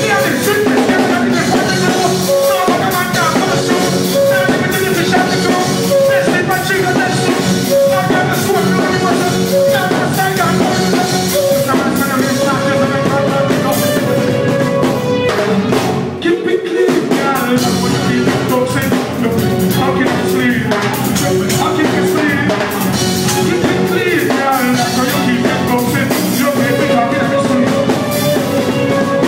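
Live reggae band music with drum kit, played loud and steady, with a short break about sixteen seconds in.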